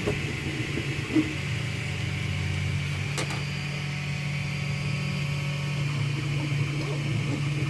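Anet A8 3D printer running mid-print: a steady fan hum with the stepper motors whining as the print head moves, and one sharp click about three seconds in.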